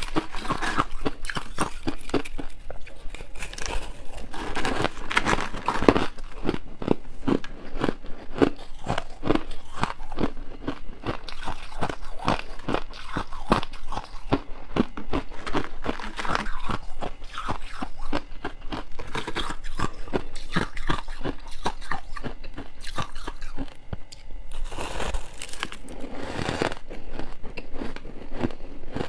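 Close-miked crunching of powdery frost ice being bitten and chewed: a dense, continuous crackle of packed frost breaking between the teeth.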